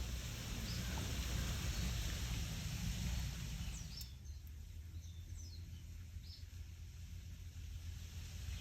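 Wind rustling through leaves, a steady hiss over a low rumble of wind. Through the middle come a few faint, short high bird chirps that sweep downward.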